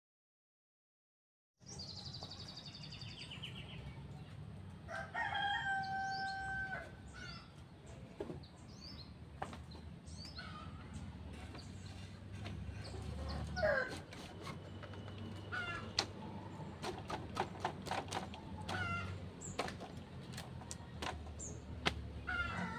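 A rooster crows once, about five seconds in, with a long held call. Other short bird calls come and go over a steady low hum, and scattered sharp clicks or knocks sound through the second half.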